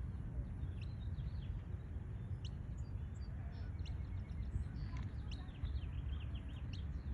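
Small birds chirping: short, high, quick chirps, coming thickest in a run about five to six seconds in, over a steady low background rumble.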